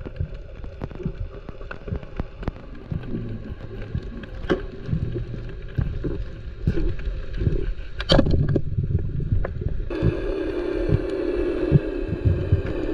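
Underwater noise picked up by a GoPro in its housing as a spearfisher swims along the bottom: a low rumbling water wash with scattered sharp clicks and knocks, the loudest a bit past the middle. About ten seconds in, a steady hum joins the rumble.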